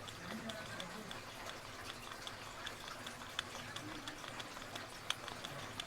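Tubular lock pick being worked in a tubular lock: faint, irregular small metallic clicks as the pick is pushed and turned against the pins, with a couple of slightly sharper clicks.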